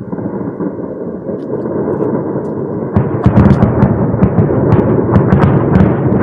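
Air defence fire: a loud, dense rumble of gunfire and blasts, joined about three seconds in by a rapid run of sharp cracks.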